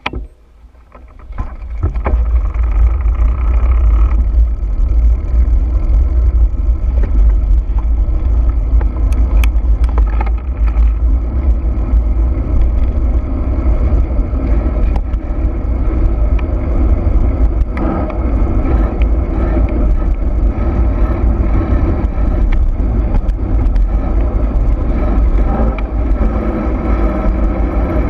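Heavy wind buffeting on the camera microphone, with rattling and clatter from riding fast down a rough dirt trail; it builds up over the first two seconds and then runs loud and steady.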